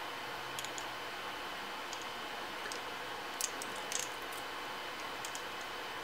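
Light, scattered clicks and taps of two small keychain pocket knives, a SOG key knife and a Victorinox Swiss Army Classic SD, being shifted in the fingers and knocked against each other, over a steady hiss.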